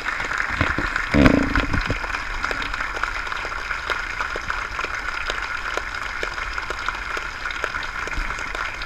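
A large audience applauding steadily, with one brief louder low sound about a second in.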